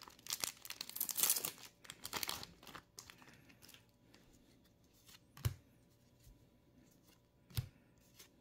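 Shiny trading-card booster pack wrapper torn open and crinkled for about three seconds. After that it goes quieter, with two sharp taps as the cards are handled.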